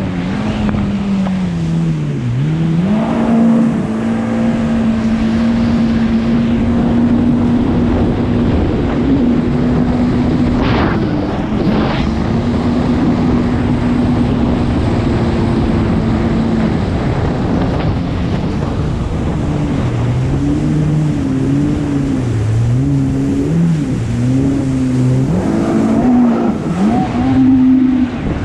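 Yamaha VX Cruiser jet ski engine running at speed over the rush of water spray and wind, its note mostly steady with brief throttle dips. In the second half a second jet ski's engine note weaves up and down alongside it as both riders work the throttle.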